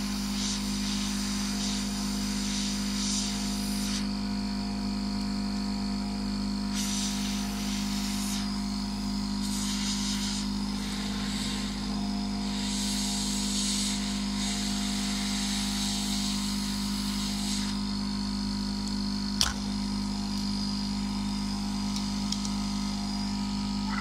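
Hot-air rework gun blowing on a circuit board to melt its solder: a steady fan hum under an airy hiss that swells and fades several times, with one sharp click a little past three quarters of the way through.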